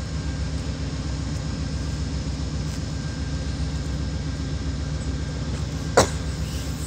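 Amtrak P42DC diesel locomotive idling at a distance, a steady low rumble. A single sharp click about six seconds in.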